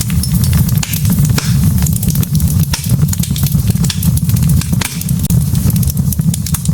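Wood fire of burning logs in a fireplace, crackling and popping continually over a steady low rumble of the flames.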